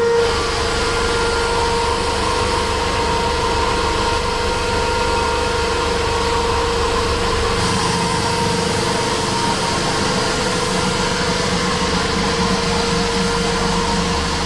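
Drum-type wood sawdust machine running with a steady motor hum and mechanical noise; its tone shifts about seven and a half seconds in.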